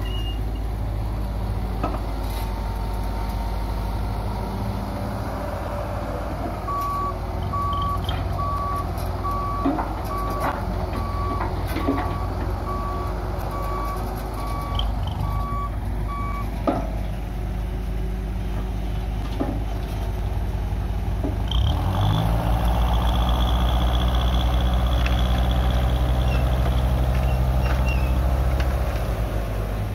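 Six-wheel tipper lorry's diesel engine running while its reversing alarm beeps steadily for about ten seconds, with scattered knocks. About two-thirds of the way in, the engine revs up and holds a higher steady note as the hydraulic hoist raises the tipper body to dump its load of soil.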